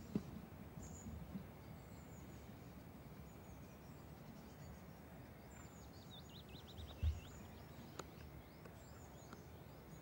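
Quiet countryside ambience with a steady low background noise and small birds chirping faintly now and then, including a quick run of short high notes a little past halfway. A short low thump about seven seconds in is the loudest sound.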